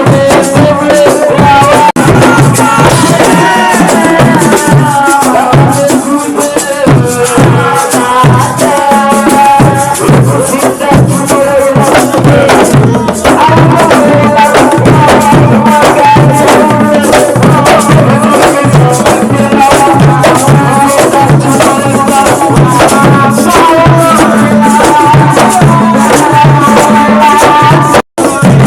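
Music: singing over a steady drum beat with rattling percussion. It cuts out for an instant near the end.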